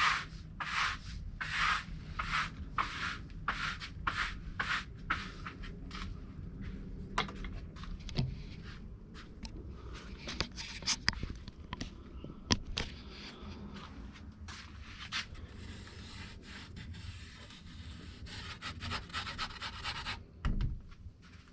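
Sandpaper rubbed back and forth on pallet wood by hand in quick regular strokes, about two or three a second. After about six seconds the strokes give way to irregular scraping and scattered light knocks.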